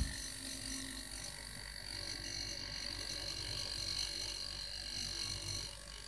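Cut-open hermetic refrigerator compressor running steadily with a low hum, freshly oiled and turning freely again after being seized. A short click comes right at the start.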